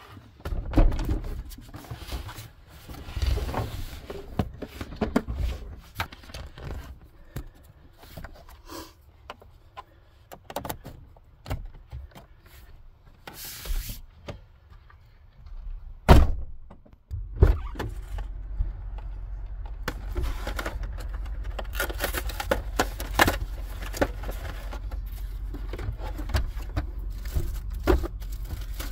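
Clunks, thumps and rattles of food and cans being packed into an Iceco 12-volt portable fridge and its lid being handled, with a few sharp knocks. About 17 seconds in, a steady low hum starts and keeps running under the handling.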